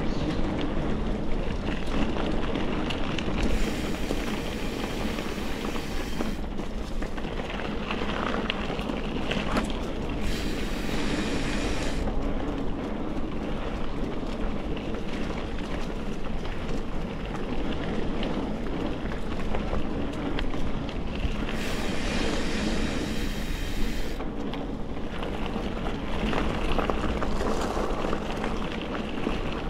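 Mountain bike rolling over a rough, overgrown forest singletrack: a steady rumble from the tyres with the bike rattling over the bumps, and wind on the microphone.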